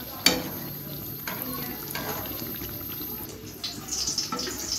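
Mughlai paratha shallow-frying in hot oil, sizzling steadily, with a sharp clink of a metal utensil against the pan about a quarter second in. Near the end the sizzle grows louder and hissier as the paratha is flipped over into the oil.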